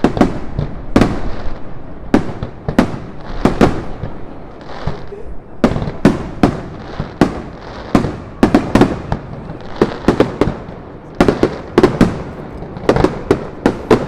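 Aerial fireworks display: shells bursting in a rapid, irregular string of sharp bangs, bunching into quick volleys in the second half.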